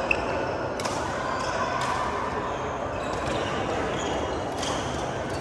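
Badminton play in a sports hall: one sharp racket smack on the shuttlecock just after the start, then a few fainter hits over the steady murmur of the hall.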